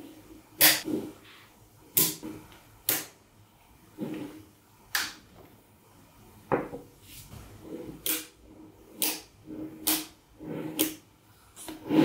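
Cubes of small magnetic metal balls clicking together as they are joined and handled, about nine sharp clicks roughly a second apart, with softer knocks between.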